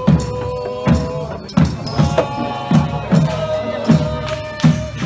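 Traditional Sri Lankan procession music: drums beating a steady slow rhythm of about one and a half strikes a second, with a reed pipe holding long, high notes over them.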